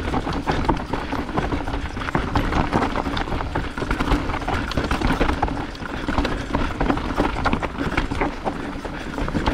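Nukeproof Giga full-suspension mountain bike rattling over rough singletrack: a dense, irregular run of knocks and clicks from tyres, chain and frame hitting roots and rocks. Wind rumbles steadily on the action camera's microphone.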